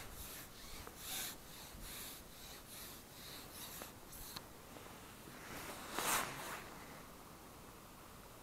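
Rhythmic rubbing and rustling, about two strokes a second, of a carbon fishing pole against the angler's jacket as he handles it while playing a fish, then one louder rustle about six seconds in as the landing net is brought out.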